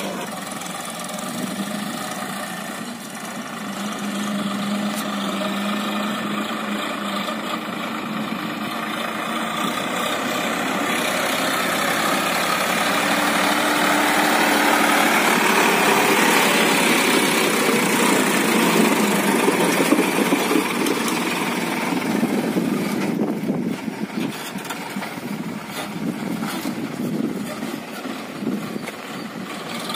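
Sonalika DI 47 RX tractor's diesel engine running under load as it pulls a trolley heaped with soil. It grows louder as the tractor drives past about halfway through, then quieter as it pulls away.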